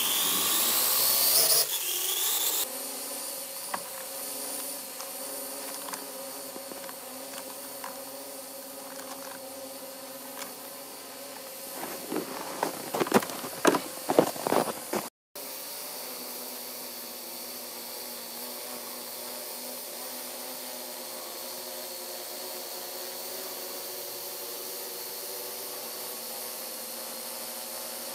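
Parrot AR.Drone quadcopter's four electric motors and propellers spinning up with a rising whine, then holding a steady buzzing hum while it hovers. A burst of sharp knocks comes in the middle.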